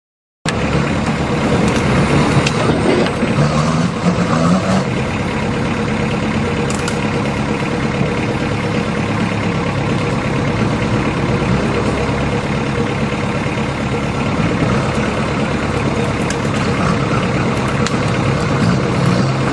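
Sherp ATVs' small diesel engines running steadily as the machines crawl over rough forest ground, one working close by. The sound cuts in after a brief silence at the very start.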